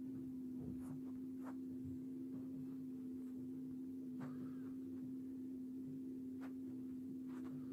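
A steady, unchanging low hum on one tone, with a few faint ticks scattered through it.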